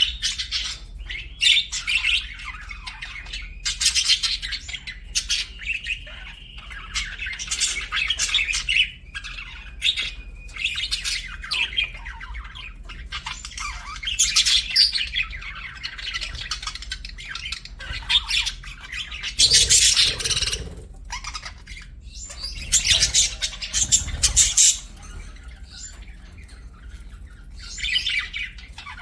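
Budgerigars chirping in quick, repeated runs of high calls, with louder, harsher squawks twice in the second half.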